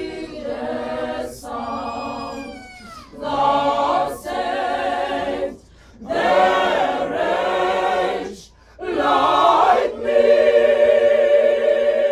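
Mixed choir of men's and women's voices singing unaccompanied in harmony. The singing comes in phrases with short breaks between them, and ends on a long held chord.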